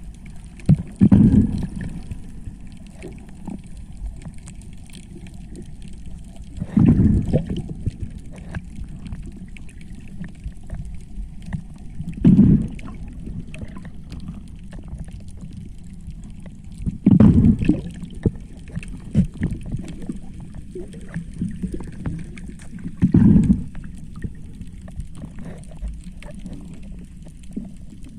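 Underwater recording with a steady low rumble, broken about every five to six seconds by a short burst of bubbling from a diver's exhaled air. There are five such bursts.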